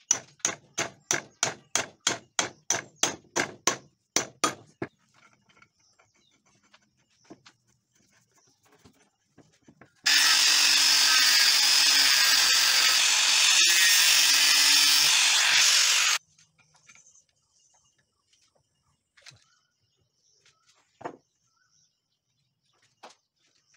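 A hammer strikes the steel spindle assembly in a quick run of about fifteen ringing blows. About ten seconds in, an angle grinder cuts into the end of the steel spindle shaft with a steady grinding noise for about six seconds, then cuts off suddenly.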